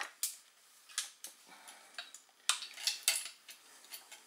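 Recurve crossbow being cocked with a rope cocking aid: the cord and its hooks click and clink against the string, rail and limbs in a string of sharp, irregular clicks.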